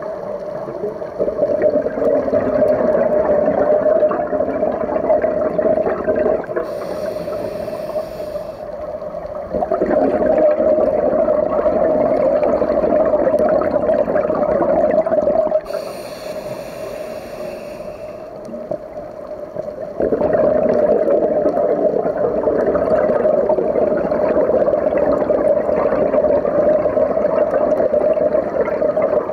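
Underwater ambience as heard by a camera in its housing: a steady hum over a rushing wash of water. Twice there are short hissing spells from scuba divers' regulators and exhaled bubbles. The loudness jumps up and down in blocks as the shots change.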